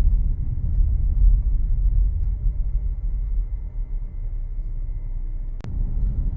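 Steady low rumble of a moving car, road and engine noise heard from inside the cabin, with a single sharp click a little over five seconds in.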